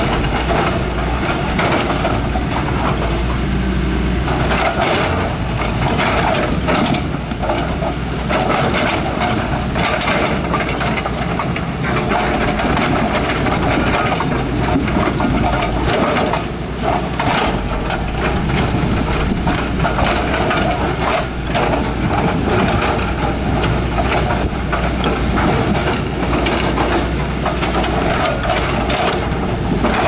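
Heavy diesel construction machinery running steadily, with frequent knocks and clatter over a constant low engine drone.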